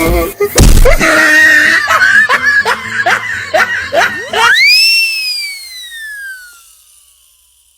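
Cartoon-style voice sound effect: a quick run of short rising yelps, then one long high cry that swoops up and slowly falls in pitch as it fades away.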